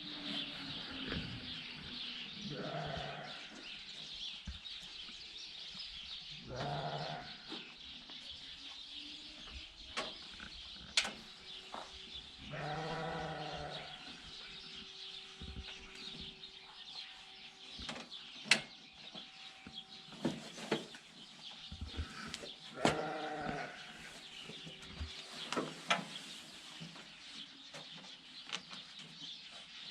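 Livestock bleating, about four calls spread across the stretch, over a steady high hiss with scattered sharp clicks.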